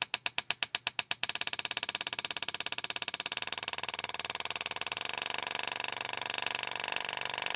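12 V boost control solenoid clicking open and shut under an Arduino's pulse-width-modulated signal, at about ten clicks a second. About a second in it switches to a much faster, steady ticking as the simulated gear setting changes its drive frequency and duty cycle.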